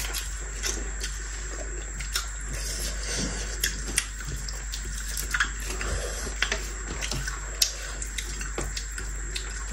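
Close-miked eating: irregular wet clicks and smacks of chewing, with fingers mixing rice and curry on the plates.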